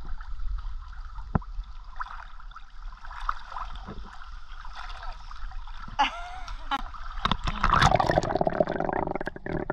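Swimming-pool water sloshing and splashing. From about six seconds in it is heard underwater, as louder, muffled gurgling and bubbling.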